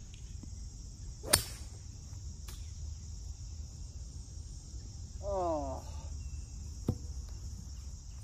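Golf iron striking the ball with one sharp click about a second in, over a steady high buzz of insects. A brief call with rising pitch follows a little after midway, and a fainter click comes near the end.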